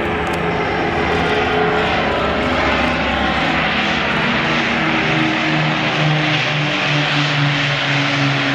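Avro Lancaster bomber's four Rolls-Royce Merlin V12 piston engines running as it flies past, a steady multi-engine propeller drone whose pitch rises slightly about halfway through.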